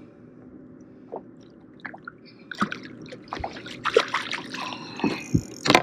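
Hooked lake trout thrashing and splashing at the water's surface as it is brought into a landing net. Irregular splashes come from about halfway through, with a loud hit near the end, over a steady low hum.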